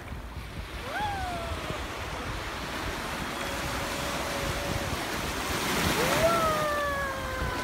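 Small waves breaking and washing up the shoreline, swelling as a wave rushes in about six seconds in, with wind on the microphone. A few high drawn-out cries sound over the surf, the last a long falling one near the end.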